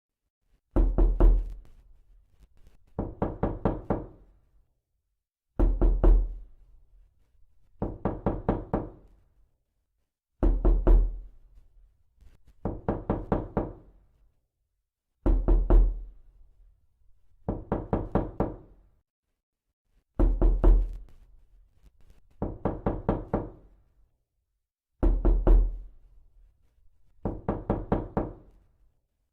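Knocking in runs of four or five quick knocks. A louder run with a deep thud is followed about two seconds later by a slightly quieter run, and the pair repeats about every five seconds, six times over.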